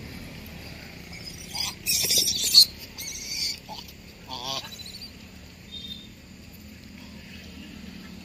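Gray langurs squabbling over food: a harsh, noisy screech about two seconds in, then a short wavering squeal.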